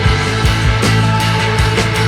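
Background rock music with a steady drum beat and sustained bass.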